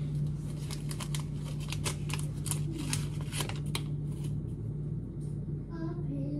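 Paper tea-bag sachet being torn open and unwrapped by hand: a quick run of crisp rustles and small clicks over the first four seconds, then fading off. A steady low hum lies underneath throughout.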